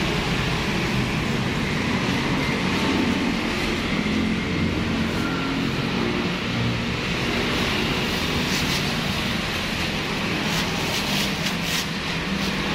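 Steady road-traffic rumble, with a few short crackles near the end.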